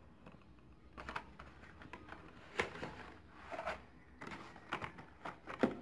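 Light, irregular clicks and taps of plastic blister packs and cardboard backing cards being handled: carded Hot Wheels cars set down and pulled from a cardboard case.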